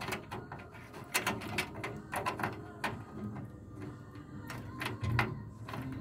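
Scattered light metallic clicks and scrapes as the chrome bezel nut is threaded onto the headlight switch shaft through the dash panel, the switch body shifting against the panel. A duller knock comes about five seconds in.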